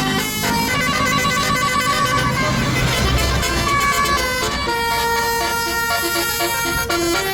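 A tour bus passing with its engine running. From about four and a half seconds in, a telolet horn, a multi-tone bus air horn, plays a quick melody of short stepped notes.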